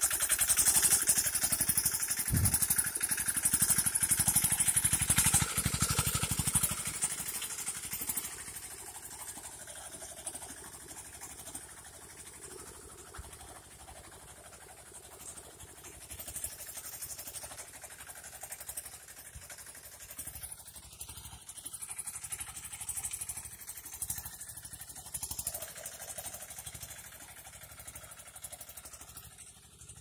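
Mini tractor (two-wheel power tiller) engine running with a fast, even chug while ploughing soil. It is loud for the first several seconds, then fades to a faint, steady drone.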